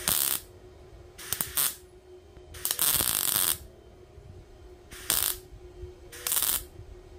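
Wire-feed MIG welder arc crackling in five short bursts, the one near the middle held a little longer, with a faint steady hum between them. These are short stitch welds building up metal across a wide gap in a sheet-metal butt joint without burning through.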